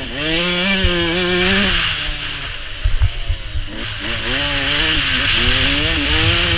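149cc two-stroke Suzuki RM motocross bike revving hard under throttle, its pitch climbing, then falling as the throttle shuts off about two seconds in, and climbing again in several rising runs. A few knocks come around three seconds in. Over it all is a steady rushing hiss of wind on the helmet-mounted microphone.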